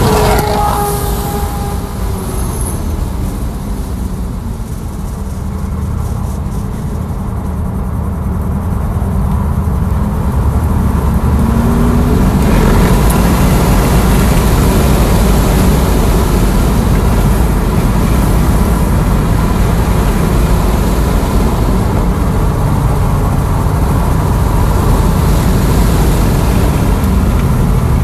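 Tesla Model S Plaid at track speed heard from inside the cabin: a steady rush of road, tyre and wind noise with a faint steady whine. The noise dips a few seconds in and grows louder and steadier from about halfway.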